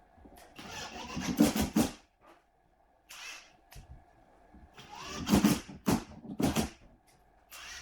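Hand work on drywall: two bouts of short scraping, rasping strokes, the first about half a second in and the second about five seconds in, with a brief hiss between them.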